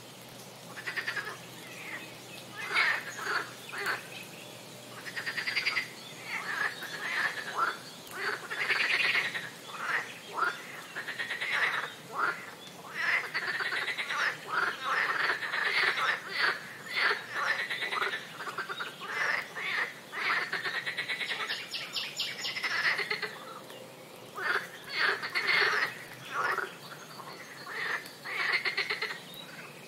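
Frogs calling in chorus: short calls of rapid pulses, one after another and overlapping, with brief gaps.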